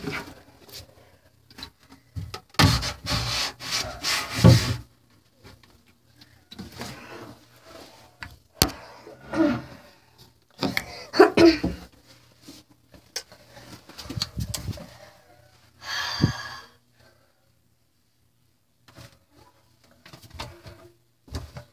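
Someone shifting about in a cramped closet: scattered rustling and bumping as things are moved and stacked, with a few short breathy vocal sounds. The densest rustling comes a few seconds in, and the sounds stop for a couple of seconds near the end.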